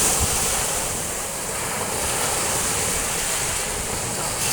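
Sea surf: waves breaking and washing onto the shore as a steady rushing noise that swells slightly near the start.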